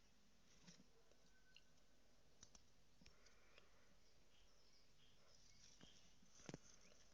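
Near silence with a few faint, scattered clicks, the loudest about six and a half seconds in.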